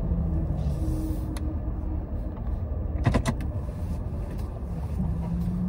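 Car driving, heard from inside the cabin: a steady low rumble of engine and road noise, with a short cluster of clicks about three seconds in.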